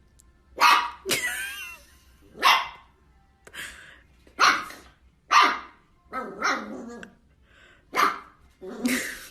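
A dog barking repeatedly, about nine sharp barks spaced roughly a second apart; the second one, about a second in, is drawn out with a wavering pitch.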